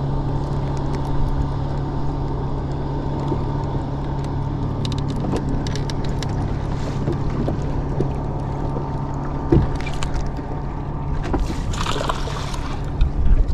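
Steady low hum of a bass boat's electric trolling motor under water lapping at the hull, with a few small clicks from the rod and reel handling. About twelve seconds in there is a brief splash at the surface where the line enters the water.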